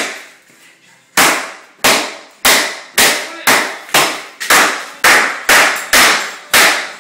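A broken iPhone being smashed with repeated hard blows: about a dozen sharp impacts, roughly two a second, starting about a second in, each one ringing out briefly.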